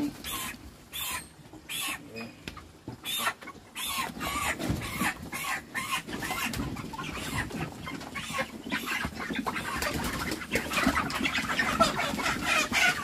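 White broiler chickens clucking and squawking as they are grabbed and caught by hand in the coop. The calls grow louder and busier over the last few seconds.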